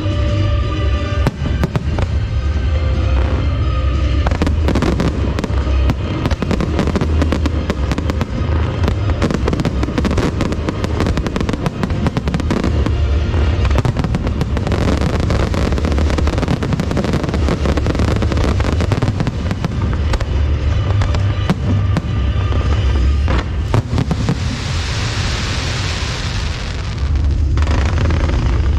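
Fireworks display: shells bursting and crackling in rapid, dense succession, with a few seconds of loud hissing near the end, over music with a heavy bass.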